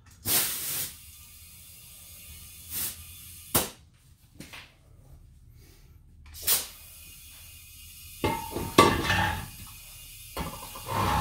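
Compressed air hissing in several short bursts as air is put into a fat scooter tire whose bead has not yet seated on the rim, the air escaping around the loose bead. Near the end comes a louder clatter of metal knocks and scraping with a little ringing, from a tool prying at the bead against the wheel rim.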